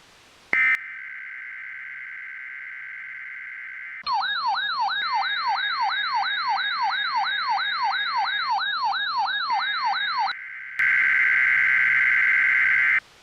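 Electronic emergency alert tones. A short loud blip, then a steady two-note tone, overlaid from about four seconds in by a siren-like sweep that rises about three times a second. Near the end the sweeping stops and the steady tone returns loud, then cuts off abruptly.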